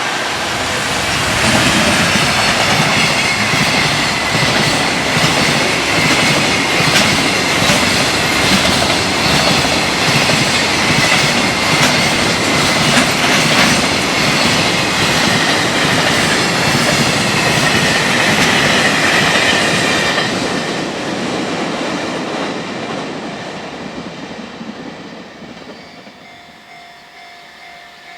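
Freight train passing close by at speed, its wheels clattering over the rail joints with a run of sharp clicks, over a high whine that sinks slightly in pitch. It dies away over the last several seconds as the train draws off.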